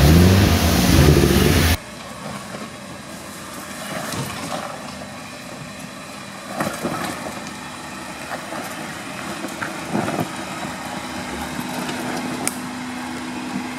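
Suzuki Samurai 4x4 engine revving hard, pitch rising, as it churns through deep mud, cut off suddenly about two seconds in. After that a second Samurai's engine runs much more quietly as it crawls over rocks, with scattered knocks and clunks and a steady hum towards the end.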